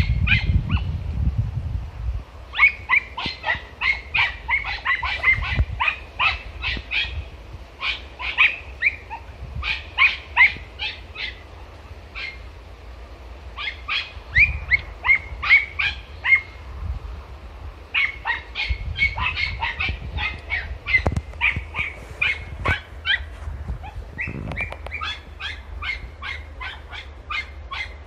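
Podenco hound puppies yelping in fast runs of sharp, high-pitched yelps, broken by short pauses: hunting dogs giving tongue as they work a scent in brambles.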